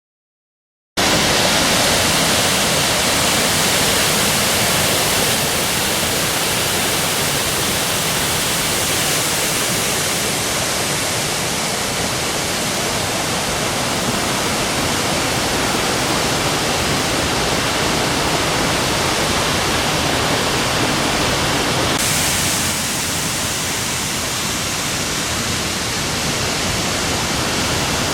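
Waterfall close by: a steady, loud rush of falling water that cuts in sharply about a second in.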